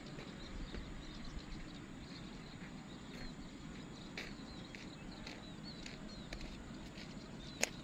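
Outdoor background noise: a steady low rumble with faint, short high chirps coming every so often, scattered light clicks, and one sharper click near the end.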